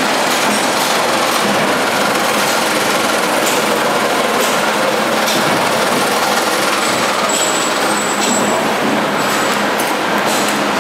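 Steady, loud din of metalworking machinery running on a machine-shop floor, a dense noise with a few light knocks and clatter through it and a brief faint high whine just past the middle.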